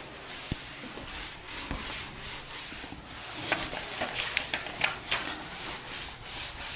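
Handwriting strokes scratching on a writing surface in short, irregular strokes that grow busier about three and a half seconds in.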